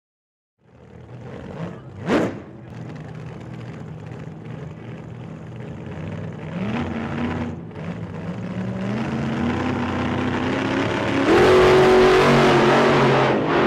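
An engine revving up, its pitch climbing in steps and the sound growing louder toward the end, with a brief sweep about two seconds in.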